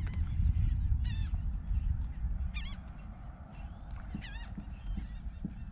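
Birds calling in three short series of honking notes, about one and a half seconds apart, over a steady low rumble.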